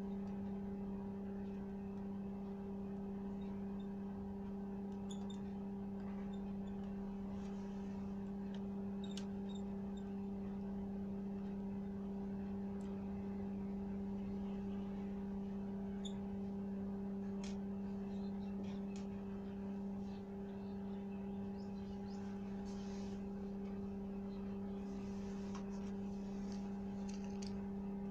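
A steady low hum, with faint scattered clicks and scratches from a soldering iron tip working the solder joints on the underside of a TV circuit board to desolder a resistor.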